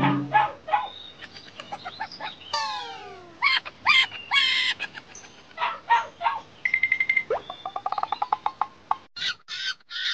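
A string of short, high-pitched animal chirps and squeaks, with a few falling whistle-like cries, and a quick run of rising pulses near the end.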